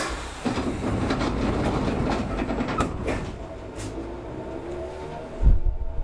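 Sangi Railway Hokusei Line 270 series narrow-gauge electric train running, its wheels clattering and clicking over the track. From about the middle, a whine from the motors rises steadily in pitch as the train picks up speed. A short heavy thump comes near the end.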